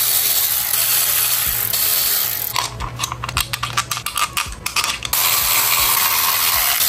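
Ratchet wrench clicking rapidly for about two seconds in the middle, with a steady hiss before and after. The clicks come as the bolts of an engine's alternator cover are run in.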